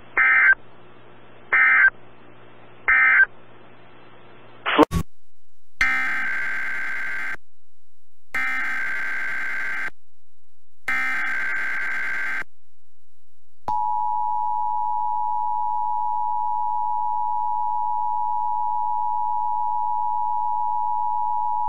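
NOAA Weather Radio Emergency Alert System data tones. Three short buzzy digital bursts, the end-of-message code, come about a second apart. From about six seconds in, three longer bursts of the same screech, the header of the next alert, follow with short gaps. Then a steady single-pitched alarm tone starts about fourteen seconds in and holds for about eight seconds: the weather radio warning alarm.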